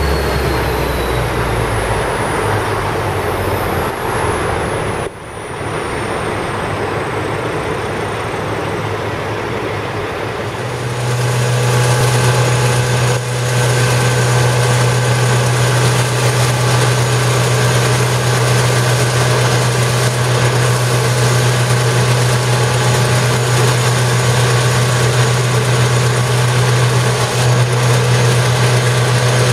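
Stripe Hog line-removal truck at work: its engine and high-pressure water-blasting pump run with a steady heavy drone and higher steady tones over it. Near the start high whines fall in pitch, and from about eleven seconds in the drone grows louder and more even.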